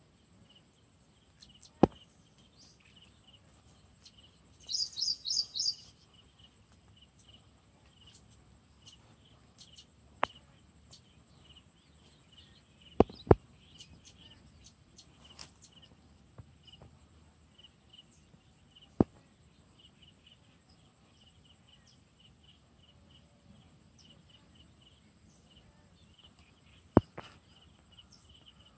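Outdoor insect chorus: a steady high-pitched buzz with a cricket-like chirp repeating at an even rhythm. A bird gives a quick series of about six high notes about five seconds in, and a few sharp clicks sound at irregular intervals.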